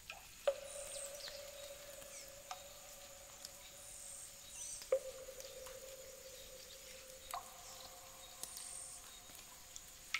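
Quiet ambient soundscape of high, insect-like chirps over a thin steady high tone. Sharp plinks come three times, each ringing on as a held lower tone for a few seconds.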